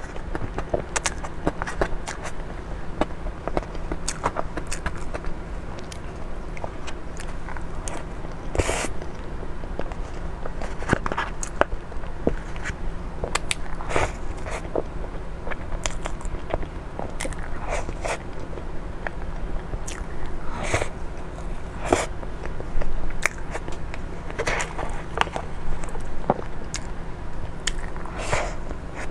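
Close-miked eating of a soft cream dessert: biting and chewing mouth sounds, with a metal spoon scraping and clicking against a moulded pulp tray. Many small clicks run throughout, with a few louder, longer mouth or scraping sounds spread through.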